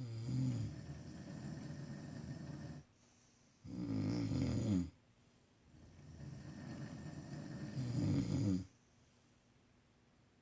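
Men snoring in their sleep: three snores a few seconds apart, the middle one shorter and louder, the last building louder before it stops.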